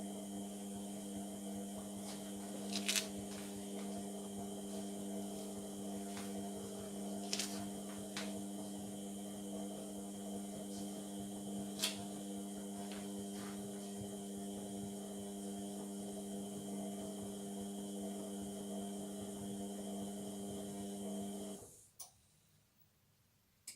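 Indesit MTWC71252WUK washing machine in the wash phase of a Cotton 30 cycle: a steady motor hum as the drum turns, with a few sharp clicks. The sound cuts out abruptly for about two seconds near the end.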